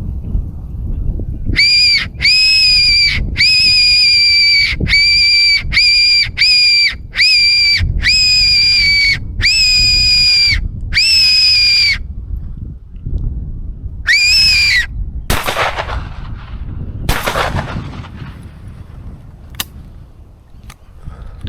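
Silva fox whistle blown as a predator call: about ten loud, high, squealing notes of uneven length in a run, then one more a couple of seconds later. Two noisy rushes that fade out follow near the end.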